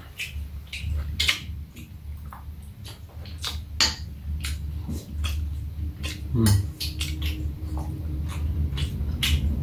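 A metal spoon clinking and scraping against a ceramic bowl while people eat, a scatter of short, sharp, irregular clicks over a low steady hum.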